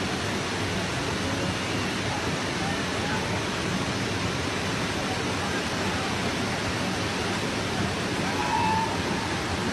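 Heavy rain pouring down in a steady, even hiss, with faint voices in the background.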